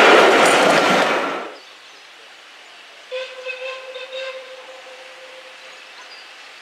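Railway coaches rolling past close by, a loud rush of wheels on rail that cuts off after about a second and a half. Then a distant steam locomotive whistle sounds one long steady note for about three seconds.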